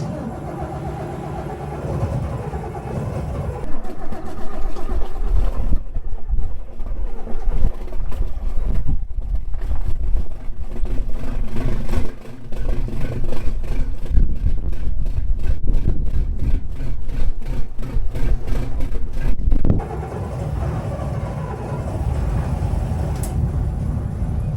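The boat's mechanical diesel engine starting up: it comes in at the start, and about four seconds in it gets much louder with a fast, even knocking. Near the end it drops back to a quieter, steadier run.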